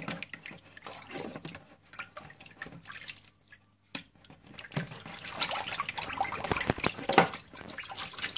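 Water in a filled sink sloshing and splashing as a smartphone is pushed around underwater by hand. The sound is irregular, breaks off briefly a little past three seconds in, and then gets busier.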